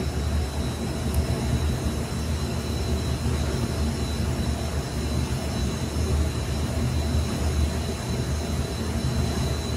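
Steady whir of the cooling fans in running rack-mounted servers, a low rumble with a thin high whine above it.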